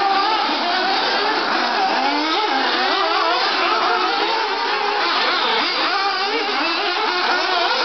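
Several 1/8-scale nitro RC buggy engines revving at once, each rising and falling in pitch as the cars accelerate and brake around the track, their whines overlapping.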